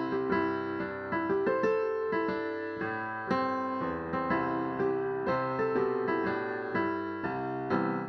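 Solo keyboard music: an electric piano playing chords and a melody, beginning to fade out at the very end.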